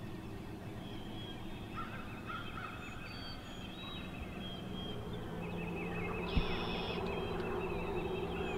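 Wild turkey gobbling faintly, with other birds chirping in short high calls.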